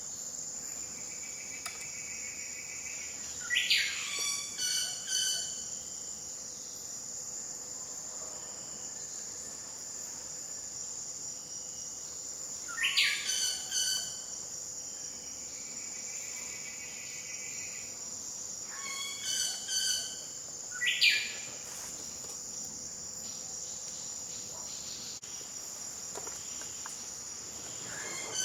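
Wilson's bird-of-paradise calling in short bouts of sharp, rising notes about every seven or eight seconds, over a steady high-pitched drone of insects.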